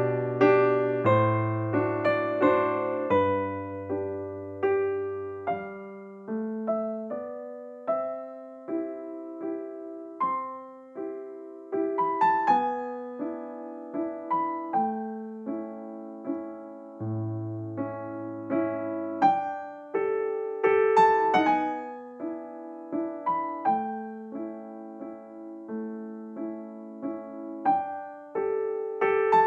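Background piano music: a gentle melody of single struck notes over a slow bass line.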